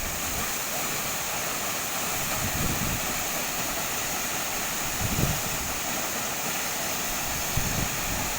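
Waterfall rushing with a steady, even hiss, with a few low wind buffets on the microphone, the clearest about five seconds in.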